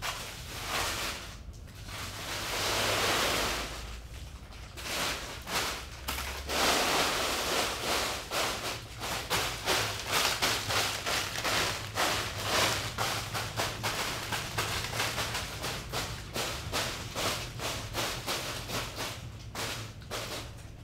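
A pile of gold-wrapped fortune cookies crinkling and rattling as hands scoop and push them together: a long swell of rustling about two to four seconds in, then a dense run of quick crinkles and crackles.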